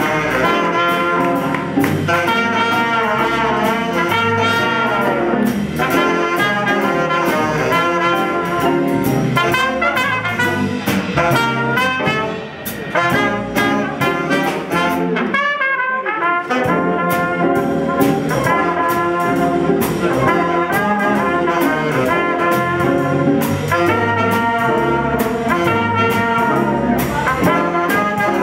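Jazz big band playing live: a brass section of trumpets and trombone, with saxophone, playing together over a drum kit. About halfway through the band thins out briefly, leaving a wavering horn line, before the full ensemble comes back in.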